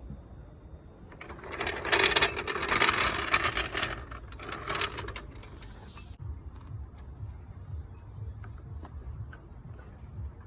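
Car jacking gear, a hydraulic floor jack and jack stand, being handled: dense metallic rattling and clicking for about four seconds, starting about a second in, followed by a few faint knocks.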